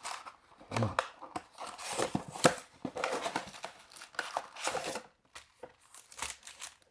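Plastic trading-card packaging crinkling and tearing in irregular crackles as a mega box and its packs are handled and unwrapped.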